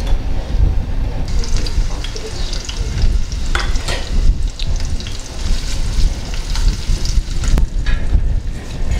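Chopped onions sizzling in hot oil in a small steel wok, the sizzle starting about a second in as they hit the oil, with a few sharp knocks and scrapes as they are stirred in the pan.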